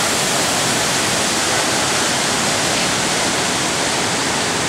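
Waterfall running heavy and loud after days of rain, a steady rushing of falling water.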